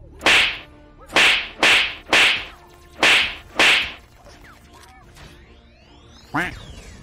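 Film sound effects of a robot's arm cannon firing six sharp, hissing blasts in quick succession, with a shorter swooshing sweep near the end.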